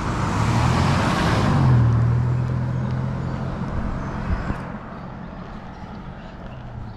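A car passing close by at speed. Its tyre and engine noise swells to a peak about two seconds in, then fades away as it recedes.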